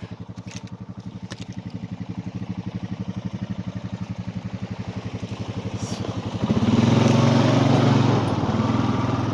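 Small engine of a farm vehicle running with an even, rapid putter, getting noticeably louder about six and a half seconds in.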